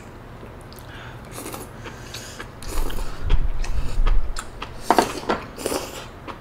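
Eating sounds of malatang: chewing and slurping in short bursts, with a few light clicks of utensils.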